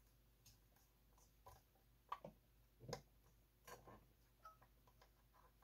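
Near silence with several faint, irregular clicks and taps, the loudest about three seconds in: an RF power transistor and small parts being handled and pressed into place on an amplifier circuit board.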